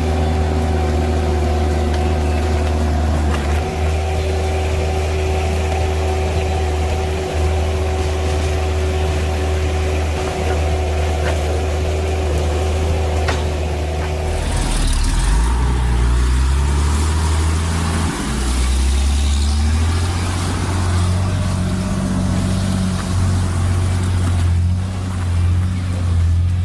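Heavy machinery engine running steadily at a constant pitch; about halfway through it gives way abruptly to a lower, uneven engine note that rises and falls.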